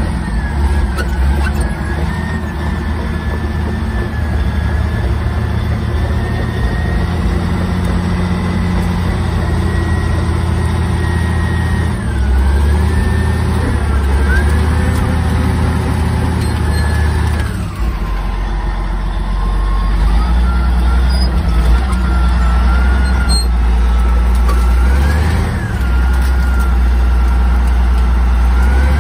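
Caterpillar D8 bulldozer's diesel engine running hard under load, heard from inside the cab, with a wavering whine above the engine note. Both drop sharply about eighteen seconds in, then climb back.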